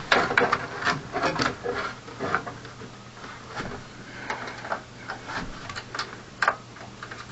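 Irregular small clicks, scrapes and rattles of screws and metal parts being handled against a PC case while a power supply is being screwed in, with one sharper click about six and a half seconds in.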